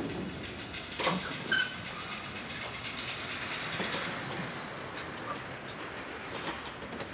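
A railroad engine standing with a steady hiss and scattered metallic clanks and clicks, the sharpest about a second and a second and a half in.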